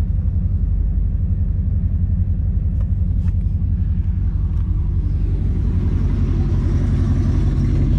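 A 350 small-block V8 with a freshly installed FIRST TPI intake and cast-iron Vortec heads, in a 1989 Pontiac Trans Am, idling nice and smooth with a steady low rumble. It grows a little louder in the second half.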